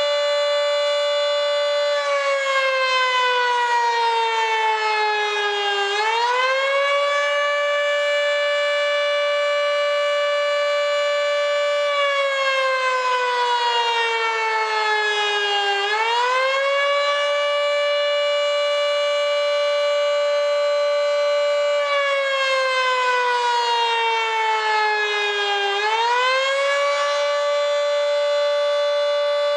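Federal Signal 2T22 three-phase dual-tone warning siren sounding the Attack signal, its top intake blocked: a loud steady chord whose pitch three times sags over about four seconds and then climbs quickly back, about every ten seconds.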